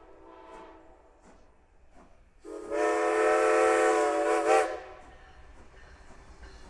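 Steam locomotive whistle: a softer blast trails off in the first second, then a long, loud blast of several notes together about two and a half seconds in, lasting about two seconds. Between the blasts the exhaust chuffs about once every three-quarters of a second as the engine works the train.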